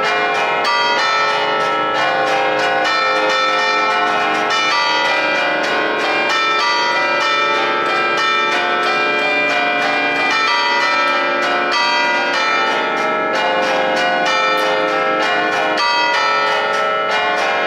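Ten bronze church bells cast by Cavadini in 1950, tuned to a B-flat scale, ringing an allegrezza, the festive Bergamasque melodic ringing, struck from an electric manual keyboard. The strokes come several a second and their tones overlap in a continuous ringing.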